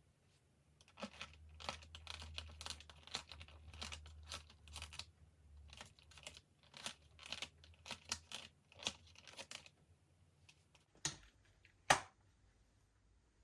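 Slime being squished and stretched by hand, giving a run of wet crackling and popping clicks. Two sharper clicks follow near the end.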